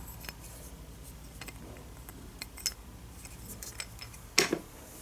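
Faint scattered clicks and taps of a small wooden toy bus being turned over in the hands, with one brief louder noise about four and a half seconds in.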